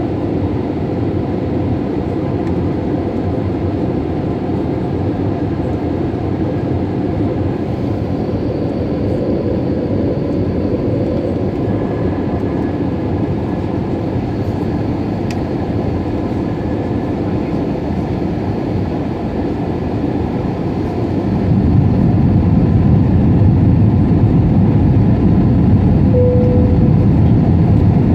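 Steady cabin roar of an Airbus A320neo in flight, its Pratt & Whitney PW1100G geared turbofans and the airflow heard from a window seat over the wing. About 21 s in the low rumble grows louder and stays so, and a brief tone sounds near the end.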